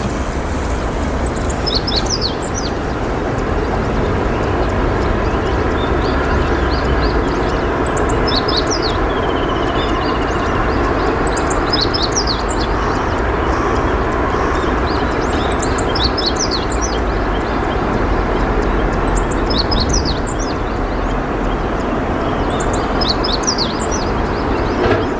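Small songbird giving short clusters of quick, high chirps every few seconds, over a steady, loud rushing noise.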